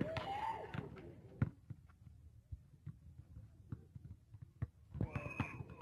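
A basketball bouncing on an outdoor asphalt court: a handful of separate dull thumps at irregular spacing rather than a steady dribble.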